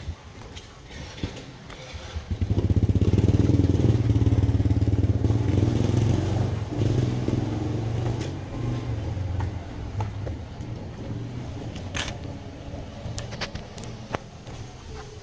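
A small motorcycle engine running nearby: it comes in loud a couple of seconds in, then fades away gradually over several seconds. A sharp click near the end.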